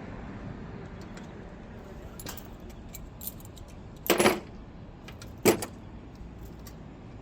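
Metal parts being handled, clinking and clattering, with two louder clanks about four and five and a half seconds in, over a steady low background hum.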